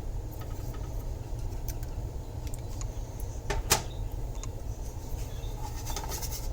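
A spoon clinking against a jar of diced jalapeños, a couple of sharp clicks about three and a half seconds in and lighter ticks near the end, over a steady low hum.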